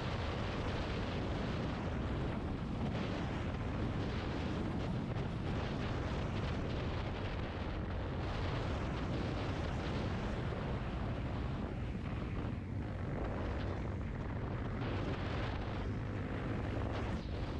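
Steady low rumble of wind buffeting the microphone, unbroken throughout.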